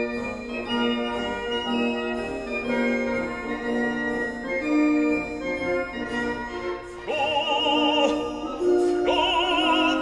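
Classical music with sustained chords changing every second or so. About seven seconds in, an operatic singing voice with a wide vibrato comes in, holding long notes.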